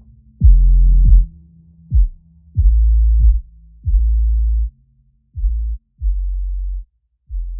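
Electronic music: deep booming bass notes, each starting with a quick downward sweep in pitch and then held, coming in uneven bursts that grow quieter and further apart as the track fades out.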